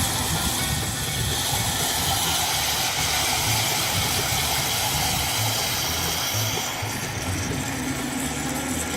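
Water running steadily in a continuous rush, as when a container or trough is filled. The rush eases somewhat about seven seconds in.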